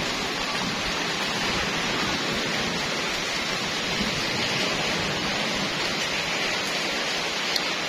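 Steady hiss of rain falling on garden plants and wet ground.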